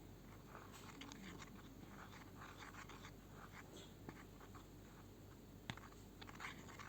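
Faint scraping and tapping of foam glue being stirred in a bowl, with a couple of sharper ticks of the stirrer against the bowl.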